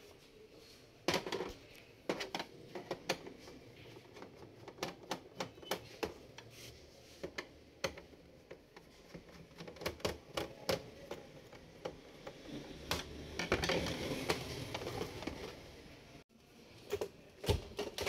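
Irregular plastic clicks and ticks as a screwdriver pries the back cover of an HP Omni 120 all-in-one PC off its clips, with a longer stretch of scraping and handling near the end.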